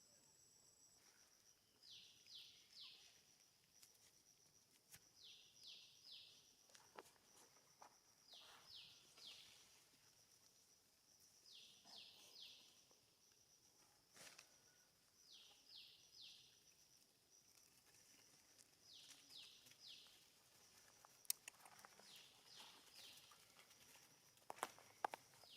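Faint outdoor sound: a bird repeats a call of three quick descending notes about every three and a half seconds, over a steady high-pitched insect drone. A few sharp clicks come near the end.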